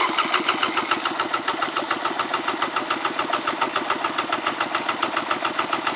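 1994 Polaris SL 750 three-cylinder two-stroke watercraft engine being cranked over by its electric starter for a compression test on the magneto-side cylinder. It gives a fast, even run of pulses that starts and stops abruptly, the engine turning over without firing, which builds the gauge to about 145 psi.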